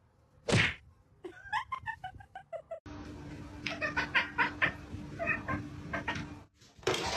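A cat meowing in a series of short calls, with a steady low hum under the later calls.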